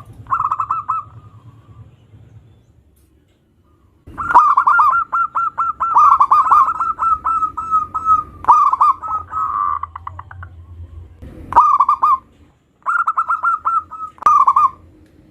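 Zebra dove (perkutut) calling in bursts of rapid, evenly repeated cooing notes. A short burst comes at the start, then a pause of about three seconds, then a long run of about four seconds, followed by several shorter bursts.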